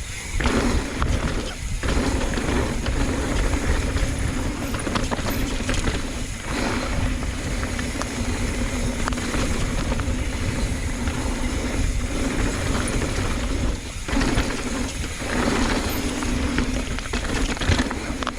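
Mountain bike descending a dirt trail: wind rushing over the rider's camera microphone, with the tyres rolling and the bike rattling over the ground.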